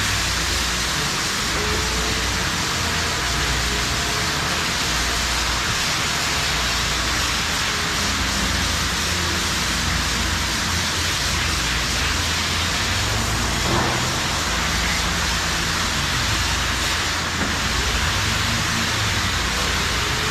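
Hose spraying water down a milking parlor, a steady hiss with a low rumble underneath.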